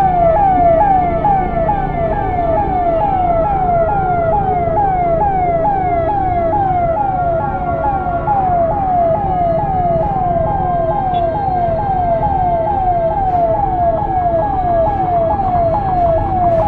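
Ambulance siren sounding continuously in a rapid falling tone, repeated about two to three times a second, over a low rumble of traffic.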